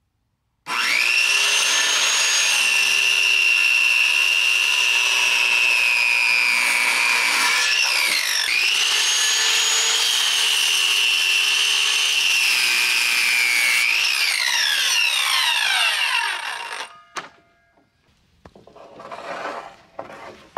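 Handheld circular saw cutting 2x6 lumber: the motor starts abruptly with a high whine, dips in pitch about eight seconds in and comes back up, then winds down from about fourteen seconds and stops near seventeen. Near the end a cut board scrapes on the stack as it is lifted away.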